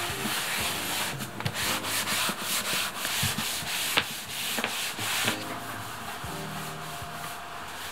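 Cloth towel rubbing back and forth over a wooden floor in quick repeated strokes, scrubbing off sticky hairspray residue. The scrubbing gets softer after about five seconds.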